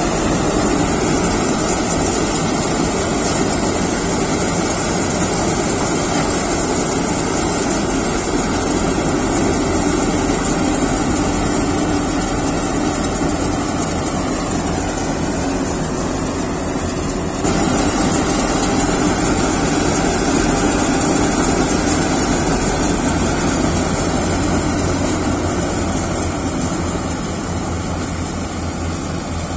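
Kartar 4000 combine harvester running steadily while cutting a paddy crop: its engine and threshing machinery make a constant mechanical din. The level jumps abruptly a little past halfway through.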